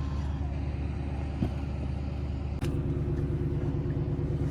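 A motor vehicle's engine running steadily with a low hum. A short knock comes about a second and a half in, and about two and a half seconds in the hum turns abruptly a little louder and fuller.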